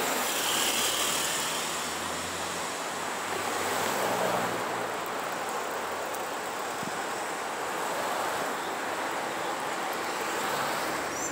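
Passing street traffic: several cars going by one after another at city speed, their tyre and engine noise swelling and fading as each passes, loudest near the start, about four seconds in and near the end.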